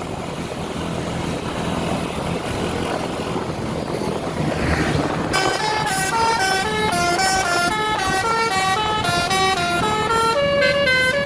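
A bus rumbles closer, then about five seconds in its multi-tone telolet horn plays a quick tune of stepping notes.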